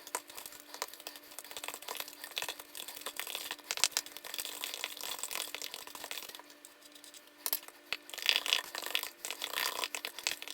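A utensil beating egg into creamed butter and sugar in a mixing bowl: quick, irregular clicks and scrapes against the bowl, with a short lull about two-thirds through before it picks up again, louder.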